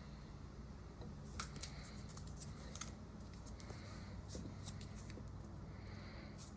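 Faint small clicks and crackling rustle of hands wrapping Teflon thread-seal tape around pipe threads, a couple of sharper clicks about a second and a half in.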